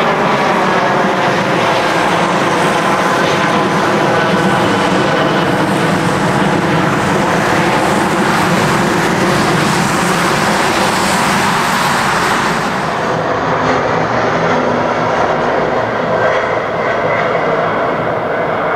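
Jet airliner passing close by with loud, steady engine noise. Its tones slide down in pitch as it goes past, and the high hiss falls away about two-thirds of the way through as it moves off.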